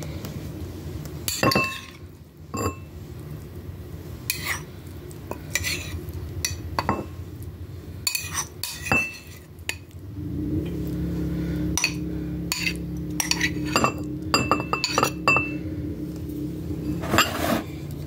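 A utensil clinking and scraping against a ceramic bowl as corn kernels are spooned onto mashed potatoes, in many short sharp clicks. A steady low hum comes in about halfway through.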